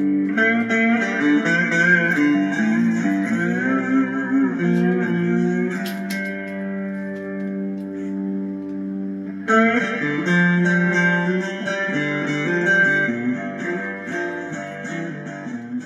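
Intro music led by guitar, with held notes; it swells again about two-thirds of the way through.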